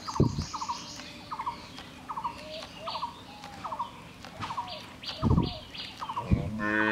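A bird repeating a short, low call over and over, about twice a second, with a few higher chirps from other birds in between.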